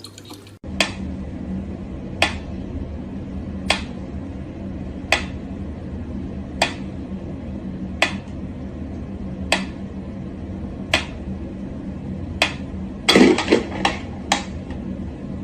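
Sharp clicks or taps at an even pace, about one every second and a half, over a steady low hum, with a quick flurry of clicks near the end.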